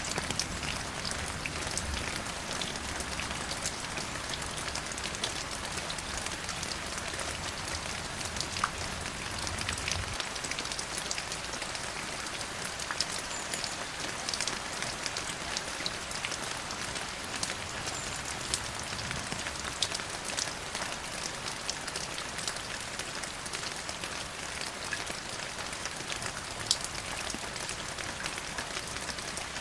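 Steady rain falling on a hard surface, with many separate drop hits ticking through the hiss. A low rumble underneath drops away about ten seconds in.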